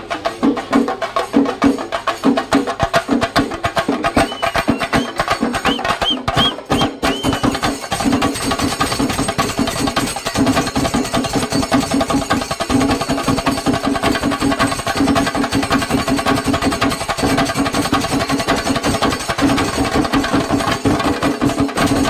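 Singarimelam percussion: chendas beaten in fast, driving stick strokes with ilathalam cymbals. A few short, high rising whistle-like notes sound about a quarter of the way in. About eight seconds in, the strokes close up into a denser, steadier roll.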